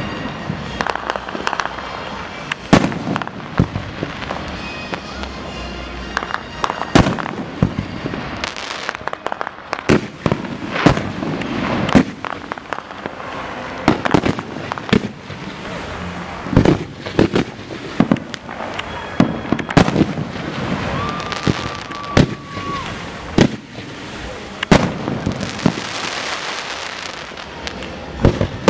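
Aerial fireworks display: shells bursting in quick, irregular succession, many sharp bangs a second or two apart with smaller pops between them. A brief steady whistle-like tone sounds about three-quarters of the way through.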